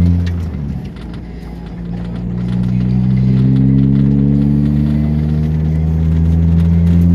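1992 Plymouth Laser's 4G63 four-cylinder engine revving on freshly fitted reconditioned fuel injectors. The revs dip about half a second in, climb back over the next couple of seconds and are held up steadily. It seems to be running better, no longer lean and misfiring.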